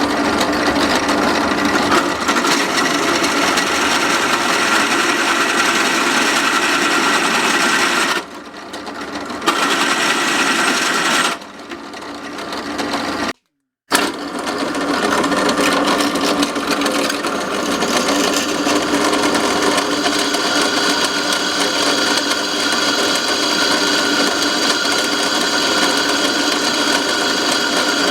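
Large drill press drilling steel: the motor and spindle run with a steady whine and grinding cutting noise. The sound drops off twice, about eight and eleven seconds in, then cuts out completely for half a second before the drilling picks up again and runs on steadily.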